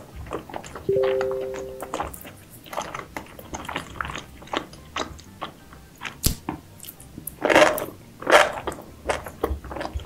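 Close-miked eating of seafood: a steady run of small crunches, cracks and chewing sounds, with two louder crunches in the second half. A held two-note musical tone sounds for about a second near the start.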